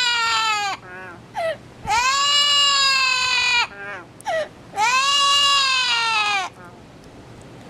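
Yellow-naped amazon parrot giving long drawn-out crying calls, each rising and then sagging in pitch. Two full calls come about three seconds apart, with a short yelp before each, and it falls quiet shortly before the end.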